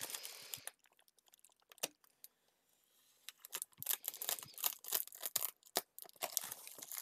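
Plastic bubble wrap crinkling and tearing as a utility knife slices through it. It is nearly quiet for a couple of seconds after the start, then a dense run of sharp crackles and rustles begins about three seconds in.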